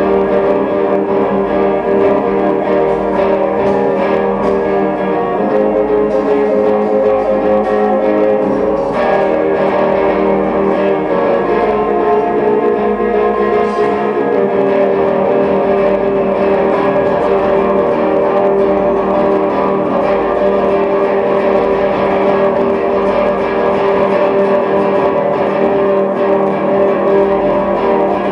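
A solo guitar playing a slow, easy improvised instrumental.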